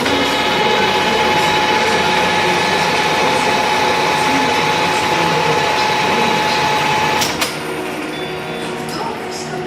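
Five-axis CNC milling machine running, a steady whine over a busy mechanical noise; about seven seconds in it drops to a quieter steady hum after a click.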